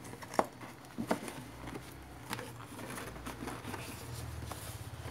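Hands handling unboxing packaging: a black pouch holding a microphone is gripped and lifted inside a cardboard box, giving a few light clicks and taps over faint rustling.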